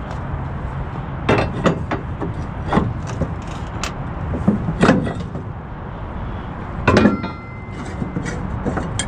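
Knocks and clanks of gear being handled on a flatbed trailer's wooden deck, with load chain and wooden dunnage, over a steady low rumble. The loudest clank comes about seven seconds in and rings briefly, like metal.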